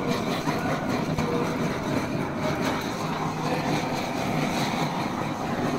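Handheld butane blowtorch running with a steady rushing noise as its flame melts shredded cheese on grilled lobster.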